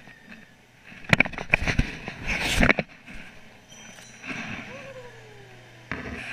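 Rustling, scraping bursts from a chest-mounted action camera rubbing against clothing and fabric as the child moves, loudest in the first half and again near the end. A faint tone glides down in pitch about five seconds in.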